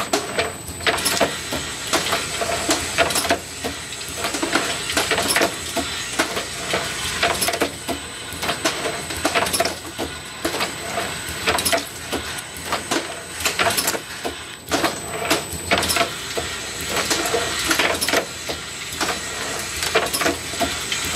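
Automatic rotary bottle-filling machine running: a dense, irregular clatter of small glass bottles knocking together as the turntable indexes and the filling heads work, with a thin steady high tone underneath.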